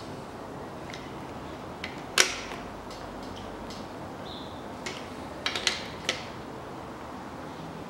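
Metal clicks and clinks of a ratchet wrench and socket being worked on crankshaft bearing cap bolts during angle-tightening. One sharp clink with a brief ring about two seconds in, then a quick run of three or four clicks around five and a half seconds and another just after six.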